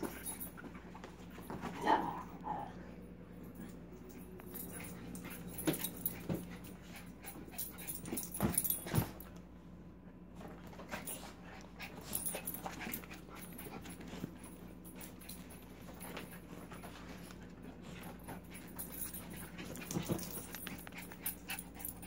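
Small dogs playing rough: scattered knocks and thumps of paws and bodies, with a short dog whine or yip about two seconds in, over a steady low hum.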